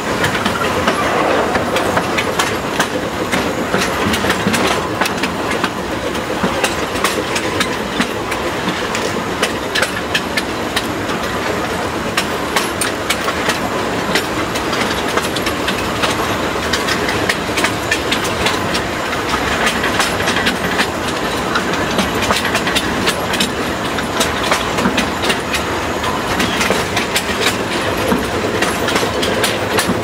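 Narrow-gauge (760 mm) forest railway train rolling along the track: a steady rattle with many sharp wheel clicks and clacks over the rail joints.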